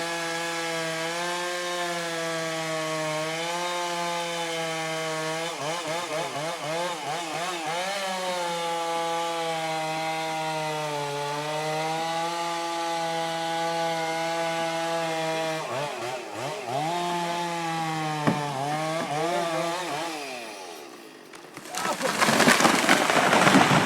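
Chainsaw running under load in a felling cut, its pitch repeatedly dipping and recovering, then dying away about twenty seconds in. After a brief lull, a loud crashing rush of the felled tree coming down fills the last two seconds.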